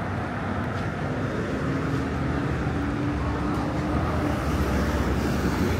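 City road traffic going by: a steady rumble of car engines and tyres, with one engine note held for a couple of seconds in the middle.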